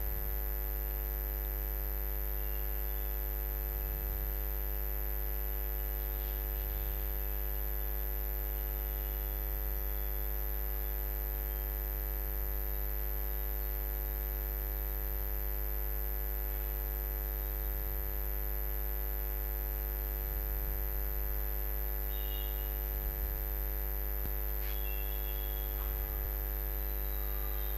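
Steady electrical mains hum with many higher harmonics: a constant low drone with a thin high whine on top.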